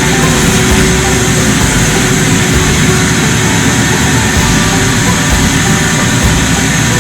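Vacuum cleaner running steadily and loud, hooked to the bottom of a dryer vent line to pull out lint.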